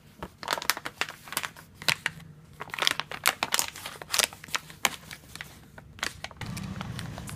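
Metallic foil coffee bag crinkling and crackling as fingers handle and crumple it, in quick irregular crackles. A low steady hum comes in near the end.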